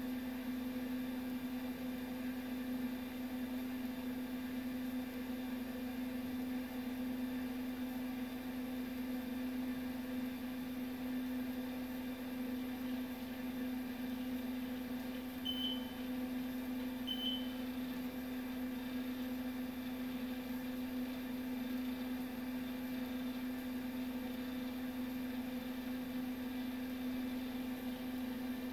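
Data General MV/3200 minicomputer running with a steady hum during the AOS/VS II boot. Two short high beeps about a second and a half apart come about halfway through.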